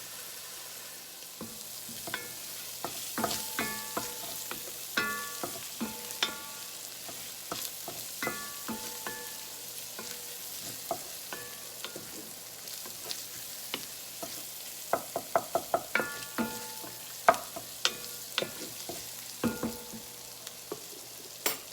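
Breakfast sausage sizzling as it browns in butter in a pan, with a utensil repeatedly knocking and scraping against the pan as it is stirred; some knocks leave the pan ringing briefly.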